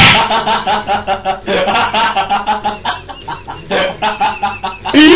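Chickens clucking in rapid repeated short notes, with a louder cry that rises and falls in pitch near the end.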